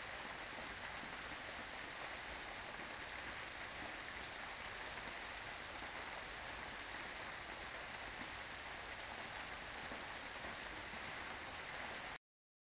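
Steady rain, a dense even hiss with no distinct drops or rhythm, cutting off suddenly near the end.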